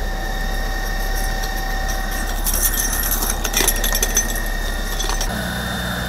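Heavy truck engines idling, a steady mechanical hum, with light metallic clinking in the middle. About five seconds in it gives way to a different, lower engine hum.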